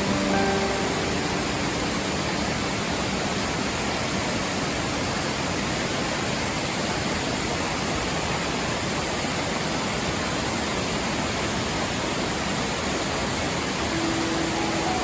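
Waterfall rushing, a steady even roar of falling water. Soft music notes fade out about a second in and come back near the end.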